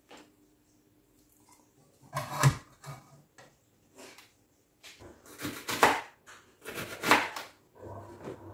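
Kitchen utensil clatter: a wooden spatula scraping cooking fat out of a tin and knocking against a nonstick frying pan. It comes in three main bursts, about two, five and a half, and seven seconds in, with smaller clicks between them.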